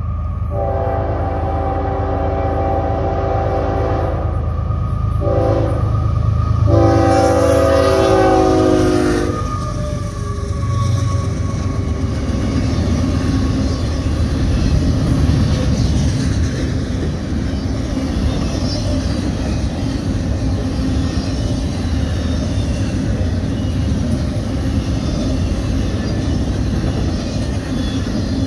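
A freight locomotive's air horn sounds a multi-note chord in several blasts over the first nine seconds or so as the train approaches. After that comes the steady rumble and rattle of double-stack intermodal well cars rolling past on the rails.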